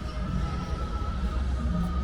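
Music with heavy bass and a held tone.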